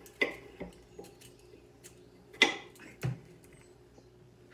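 Metal vegetable peeler scraping strips of skin off a raw potato: a handful of short, irregular scrapes, the loudest about two and a half seconds in.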